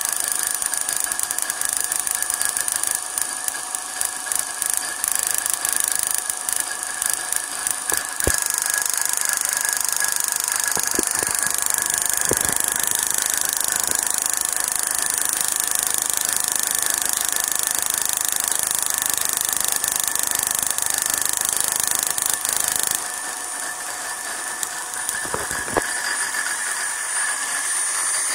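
High-voltage spark from an EDIS4 ignition coil pack arcing continuously across an open air gap between two electrodes, a steady, rapid hissing crackle of fast-repeating discharges. It drops a little in level about 23 seconds in.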